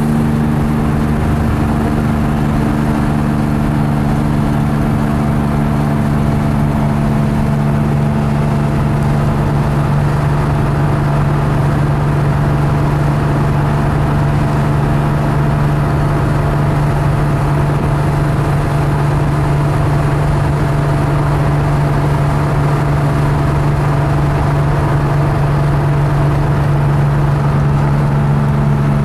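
1969 Porsche 911T's air-cooled flat-six engine running at a steady cruise, heard from inside the cabin, its drone holding one pitch throughout.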